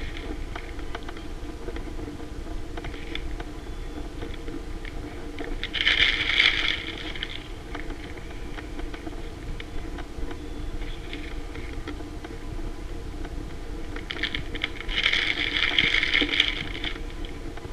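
Kitchen handling sounds while assembling a banana pudding: scattered small clicks and taps, with two louder stretches of crinkly rustling, one about six seconds in and a longer one from about fourteen seconds to near the end, over a steady low hum.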